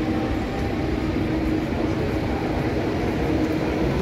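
Busy city street traffic: a steady rumble of a nearby red double-decker bus and other vehicles, with a low engine hum.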